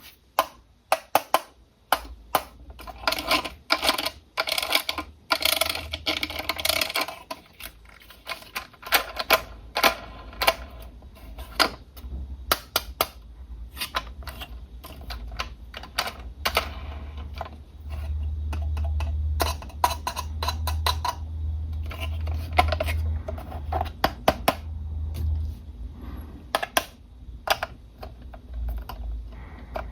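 Plastic toy car parts and packaging handled up close: many sharp clicks and taps, with a crinkly stretch in the first several seconds. A low hum runs for several seconds in the middle.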